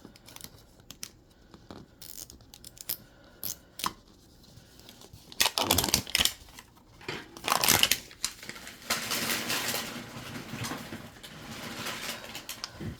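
Thin plastic wrapping being handled, torn and crinkled off a small plastic toy capsule ball: scattered light clicks at first, a few sharper clicks and knocks after about five seconds, then several seconds of steady crinkling.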